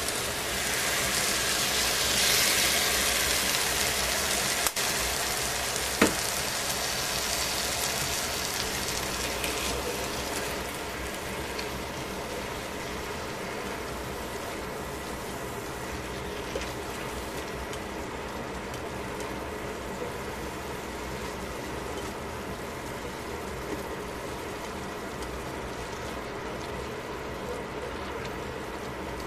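Vegetables sizzling in a hot stainless steel pot as a bottled sauce is poured in and stirred. The sizzle is loudest over the first ten seconds, then settles to a softer, steady sizzle, with a single sharp click about six seconds in.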